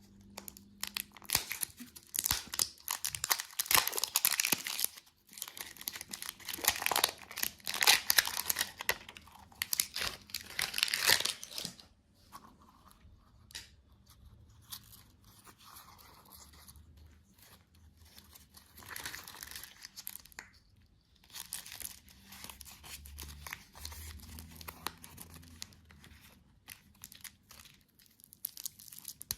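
Candy wrappers being crinkled and torn open: dense, loud crackling for about the first twelve seconds, then quieter, sparser rustling and crackles.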